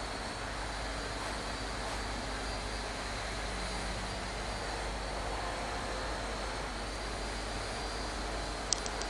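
A GWR High Speed Train's diesel power car approaching, giving a steady drone with a thin high whistle over it. A short click near the end.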